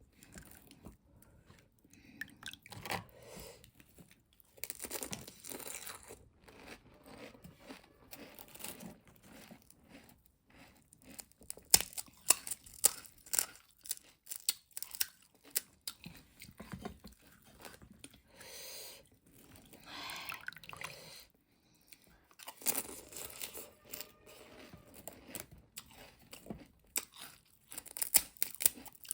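Close-up crunching and chewing of crisp pani puri shells, in irregular bursts of sharp crackles.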